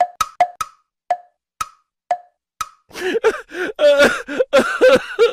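Comedy sound effect: a run of hollow, pitched wooden knocks that slow down and stop, followed about three seconds in by a goofy chuckling voice effect.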